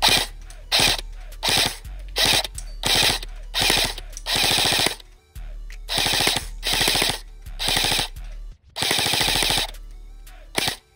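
Airsoft electric gun firing on full auto in about a dozen short bursts, each a rapid rattle of shots lasting from a fraction of a second to about a second, with brief pauses between them.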